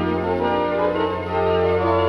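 The 4/21 Wurlitzer theatre organ of the Trocadero, Elephant & Castle, playing a held low bass note under sustained chords, with the upper notes shifting near the end. It is heard from a 1934 Columbia gramophone record.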